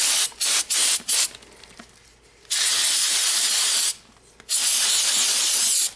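Aerosol can of brake cleaner spraying onto a metal gun rail: a few quick short bursts in the first second, then two long sprays of about a second and a half each with a short pause between.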